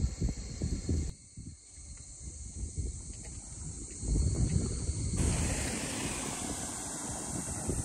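Wind buffeting the microphone in uneven gusts under a steady hiss. The sound changes abruptly about a second in and again about five seconds in.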